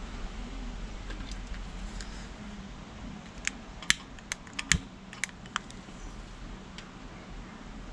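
Long-nosed utility lighter clicking repeatedly, about eight sharp clicks in two seconds, as it lights the fuel in a folding camping stove.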